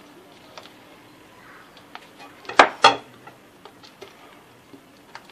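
Spatula stirring melted chocolate into an egg-yolk mixture in a glass bowl: soft scraping with light ticks, and two sharp knocks against the bowl about two and a half seconds in, a third of a second apart.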